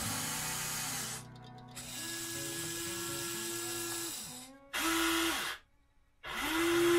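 Huina 1593 RC excavator's electric drive motors whirring as the boom and log grapple are worked from the remote: four runs of a high whirring buzz with a steady hum, split by short pauses, the last pause about three-quarters of the way through.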